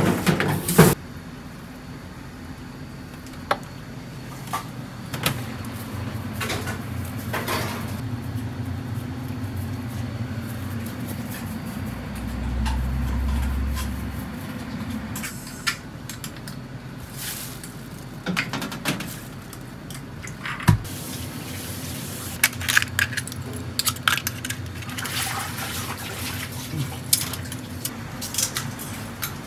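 Restaurant kitchen sounds: a steady low hum of equipment under scattered clatter of dishes, pans and utensils, with water running at a sink. The clatter comes thicker in the second half.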